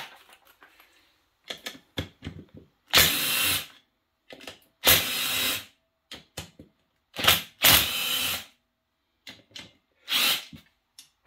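Power drill/driver run in short trigger bursts, about five runs of under a second each, with small clicks and clatter between them: a 12 mm socket spinning out bolts on a small engine's casing.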